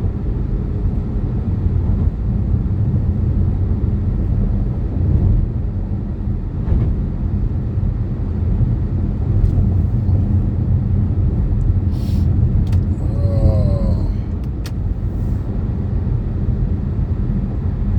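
Steady low rumble of a car driving, engine and road noise heard from inside the cabin, with a few short clicks and a brief higher pitched sound about two-thirds of the way through.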